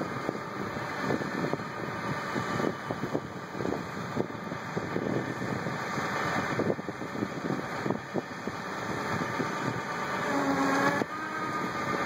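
Tractor engines running steadily under load while two grain carts auger harvested wheat into a grain truck.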